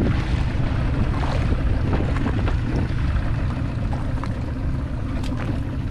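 Steady wind rumble on the microphone and sea water washing around a small open fishing boat.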